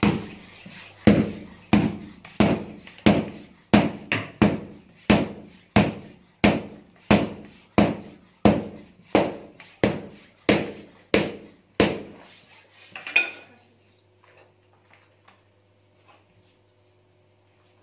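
A stick beating the air-inflated carcass of a slaughtered sheep in steady, evenly spaced strikes, about three every two seconds. This drives the blown-in air between the skin and the meat to make skinning easier. The beating stops about twelve seconds in, leaving only a few faint taps.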